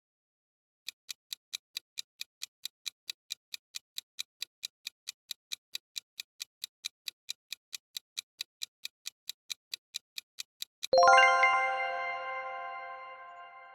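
Countdown timer sound effect ticking about four times a second for roughly ten seconds, then a bright chime strikes and slowly fades as the count ends.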